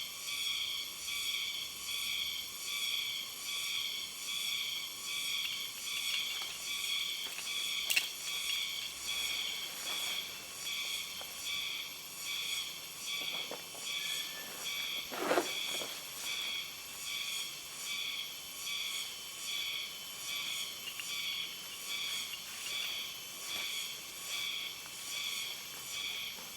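Insects calling, a steady high chorus pulsing rhythmically over and over. There is a single sharp click about eight seconds in and a brief louder sound about halfway through.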